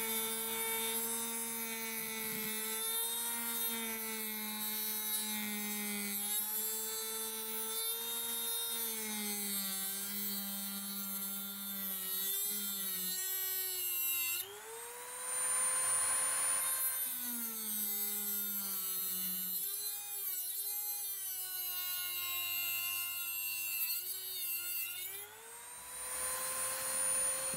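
HILDA electric rotary tool with a thin cut-off disc cutting through the metal case of a silver oxide button cell: a steady motor whine whose pitch sags and wavers as the disc bites. Its pitch rises sharply again when the disc comes free, about halfway through and near the end.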